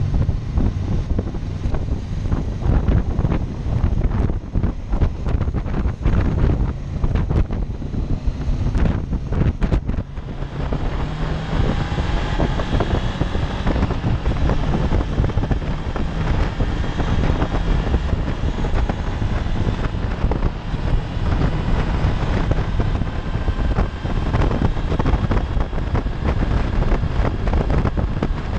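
Wind rushing over the microphone of a 2016 Honda CB500X motorcycle on the move, with the bike's parallel-twin engine underneath. Choppy buffeting for the first ten seconds or so gives way to a smoother, steadier rush.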